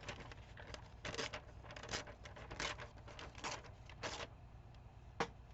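Paper tearing in about six short rips as a thin edge strip is pulled off a printed sheet, followed by one sharp click near the end.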